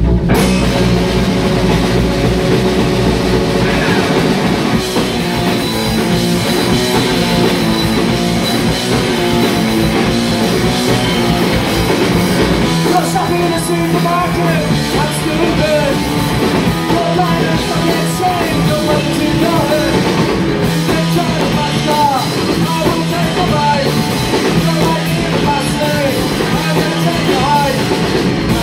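Live rock band playing electric guitars and a drum kit at full volume, with a voice singing over it from about halfway.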